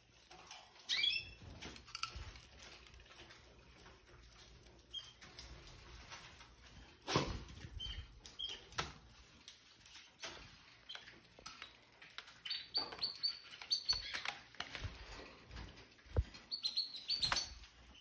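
Red factor canaries in a cage giving short, scattered chirps, with wings fluttering and light knocks as they hop and land. The chirps come in quick clusters a little over halfway through and again near the end.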